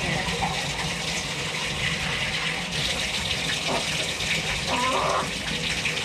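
Bathtub tap running steadily, water pouring and splashing into the tub as a hen is rinsed under it. A couple of brief soft voice-like sounds come through about two-thirds of the way in.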